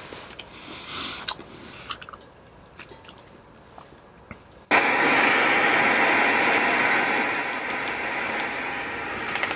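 Emsonic Saver portable radio switched on, giving a sudden loud hiss of radio static about halfway through that eases slightly near the end. Before it come a few faint clicks as the radio is handled.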